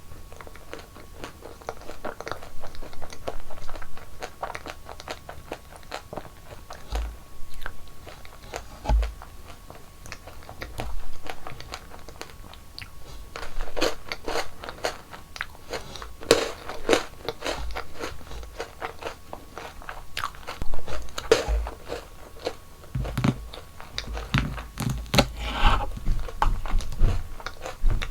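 Close-miked eating: crunchy bites and chewing of sweets, coming in irregular clusters of crackling crunches with quieter chewing between them.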